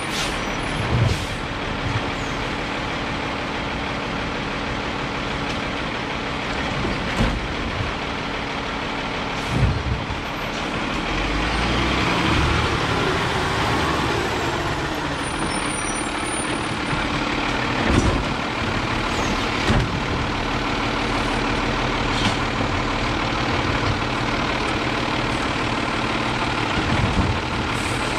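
Diesel engine of an Autocar Xpeditor garbage truck running as the truck drives up and past close by, louder from about the middle on. Several short, sharp knocks or pops are heard along the way.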